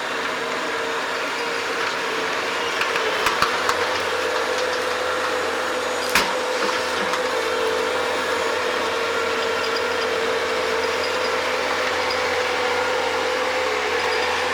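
Bobcat digging machine running steadily, a constant engine hum with a held tone above it. A few light clanks come about three seconds in and a single sharp knock about six seconds in.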